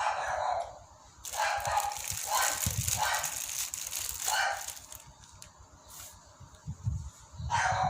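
A dog barking repeatedly: a run of barks in the first half, then again near the end.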